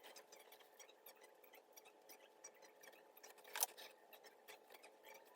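Small scissors snipping through a nylon stocking wig cap: a run of faint, quick cuts, with one louder snip about three and a half seconds in.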